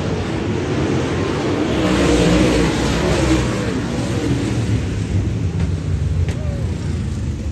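Dirt-track modified race car engines running hard, their pitch rising and falling as they rev, over a steady hiss.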